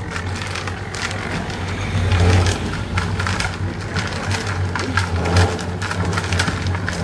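Irregular crackling and snapping, like dry material being crushed or broken, over a steady low hum.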